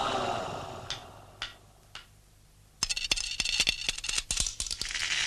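Cartoon sound effects: three light clicks about half a second apart, then from about three seconds in a fast clattering rattle as a key is worked in a padlock.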